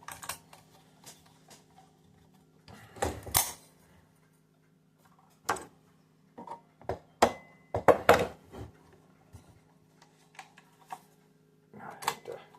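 Scattered clicks, knocks and clatter of a 3D-printed AR-15's plastic and metal parts being handled and pulled apart, the busiest burst about two thirds of the way through, over a faint steady hum.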